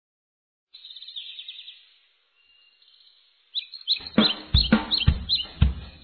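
Birds chirping briefly, then about four seconds in background music starts with a steady drum-kit beat, about two and a half beats a second.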